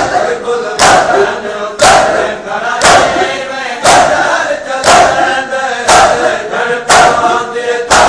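A crowd of men doing matam, striking their chests with their hands in unison: eight sharp slaps, about one a second. Between the strikes they chant a noha together.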